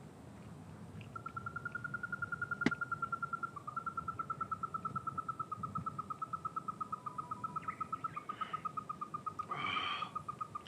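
A long, steady animal trill: rapid, evenly spaced notes at one pitch that step slightly lower once. There is a sharp click about two and a half seconds in and a short rasping burst near the end.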